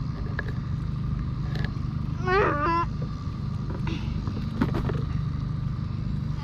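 Boat's outboard motor running steadily at trolling speed, a low even hum. A short high-pitched cry about two and a half seconds in, and a few light clicks.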